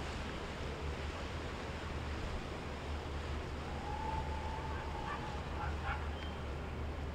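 Wind rumbling on the microphone over a steady wash of surf and passing boat engines. About four seconds in, a faint held tone rises slightly and lasts around two seconds, followed by a few short high notes.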